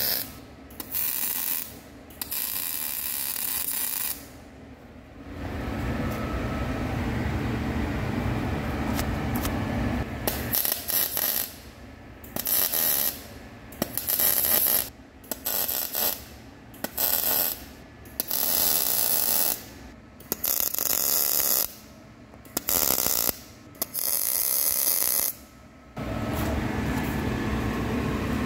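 Workshop tool and machining noises in many short stretches of a second or a few seconds, each starting and stopping abruptly.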